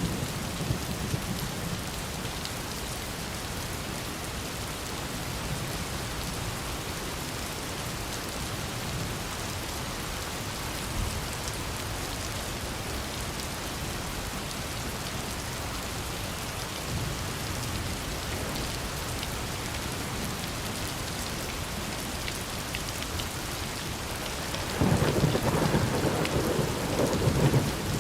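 Steady rain falling, with a roll of thunder rumbling for about three seconds near the end.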